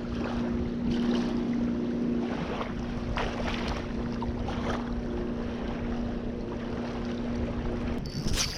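A steady, even engine hum over wind noise on the microphone, stopping abruptly near the end.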